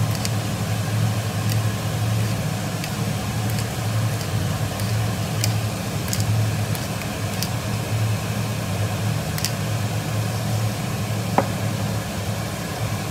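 Steady low hum of a kitchen appliance running, pulsing slightly, with a few scattered faint clicks and one sharper click near the end.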